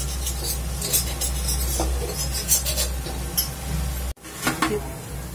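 Light clinks and knocks of kitchen utensils against a pan and worktop, a few separate strikes over a steady low hum. The sound breaks off abruptly a little after four seconds in.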